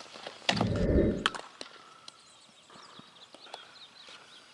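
Wind buffeting the microphone outdoors, a loud low rumble from about half a second in that lasts under a second. Scattered sharp knocks and faint bird chirps sound through the rest.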